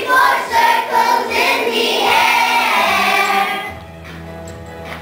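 A group of young children singing a chanted song together in unison. The singing drops away for about the last second, a pause between lines.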